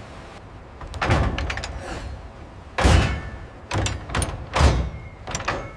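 A series of about six heavy thuds and bangs over four seconds, the loudest about three seconds in and again about four and a half seconds in.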